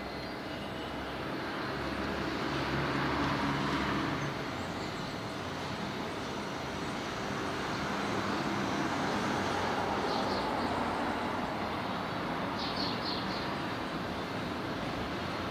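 City street traffic on a busy avenue: a steady rumble of passing vehicles, with one engine swelling louder and passing about two to four seconds in and another rise partway through. A few faint high chirps sound near the end.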